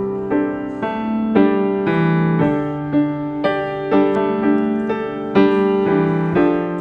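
Background piano music: gentle chords struck about every half second to second.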